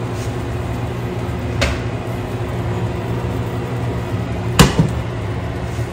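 Kitchen tongs clacking against a pan of spaghetti and sauce: a light clack about a second and a half in, then a sharp double clack about four and a half seconds in. A steady low hum runs underneath.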